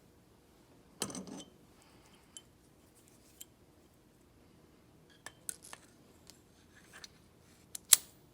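Small metal parts of an old starter motor being handled on the bench: scattered light clicks and clinks, a short rattle about a second in, and one sharp click near the end.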